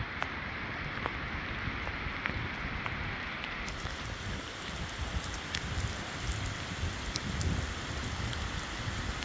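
Heavy rain pouring steadily, with many scattered sharp drop hits close by.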